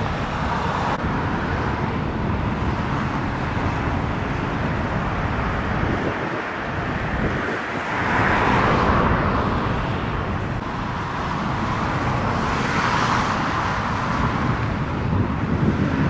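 Steady road traffic noise from cars on the roadway, swelling louder twice, around eight and thirteen seconds in.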